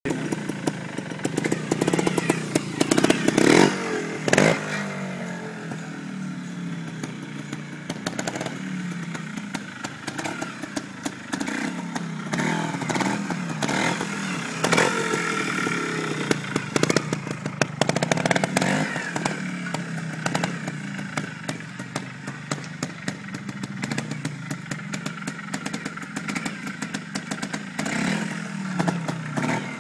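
SWM twinshock trials motorcycle's single-cylinder two-stroke engine running at low speed and revved up and down in short blips again and again, on its first run after a rebuild. Knocks and clatter come through between the revs.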